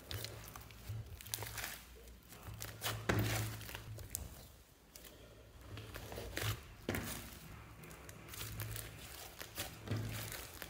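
Hands kneading, pressing and stretching a large mass of soft slime, making irregular squishing sounds and sharp pops, the loudest about three seconds in.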